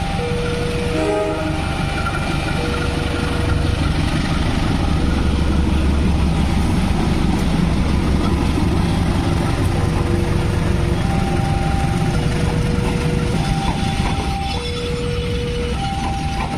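A diesel-electric locomotive passes close by with its engine rumbling, then passenger coaches roll past on the rails. Over it a crossing warning alarm sounds a repeating two-note tone.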